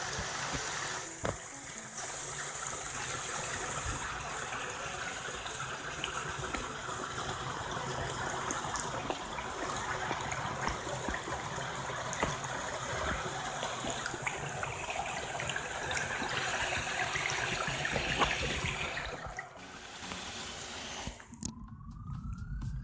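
Shallow water moving and splashing around a phone held half under the surface, recorded by the phone itself inside a waterproof pouch. Near the end the water noise drops away and a single rising tone comes in.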